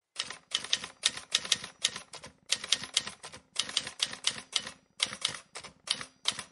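Typewriter key-clacking sound effect: rapid keystrokes in runs of several strikes, separated by short pauses.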